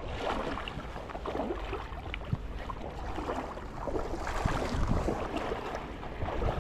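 Wind buffeting the microphone outdoors: a steady low rumble with irregular crackling over it.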